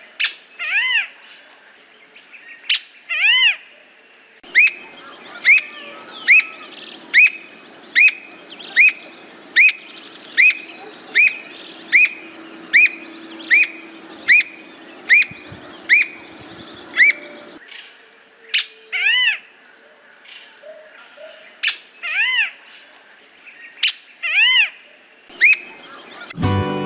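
Squirrel cuckoo (alma-de-gato) calling: a few loud single whistled notes, then an even series of about sixteen arched, clear notes roughly one a second, then a few more single notes.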